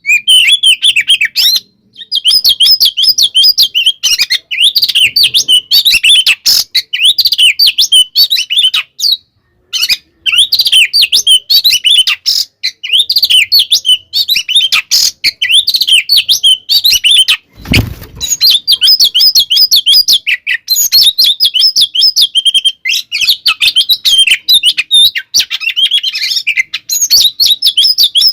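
Oriental magpie-robin (kacer) singing a fast, continuous, agitated fighting song of varied chirps and whistles, the kind played to rile another magpie-robin. The song breaks off briefly a few times. A short low thump comes about two-thirds of the way through.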